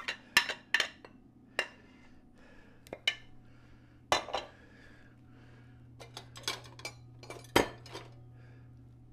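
Kitchenware clinking and knocking: a whisk tapped against a glass mixing bowl in quick strokes, then scattered clinks of dishes and utensils handled at the sink, the loudest one near the end. A steady low hum runs underneath.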